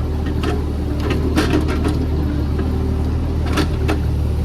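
Mini excavator's diesel engine running steadily under work, with a few sharp clanks about a second and a half in and again near three and a half seconds.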